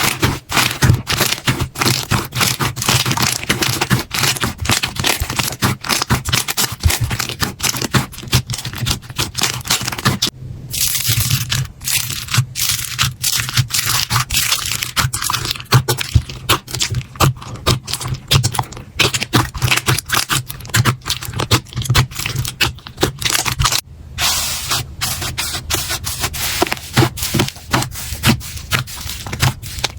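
Slime being squeezed and pressed by hand, giving dense crackling, popping and scraping sounds. There are brief breaks about ten seconds in and near twenty-four seconds.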